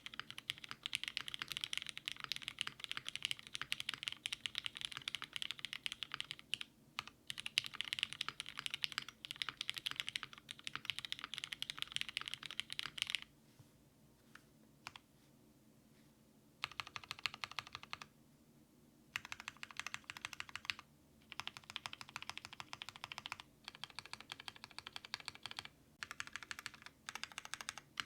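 Typing on a mechanical keyboard with retooled Cherry MX Black linear switches, lubed with Krytox 205g0 and mounted on an aluminium half-plate: a fast, steady run of keystrokes that stops about 13 seconds in, a few single key presses, then shorter runs of typing broken by brief pauses.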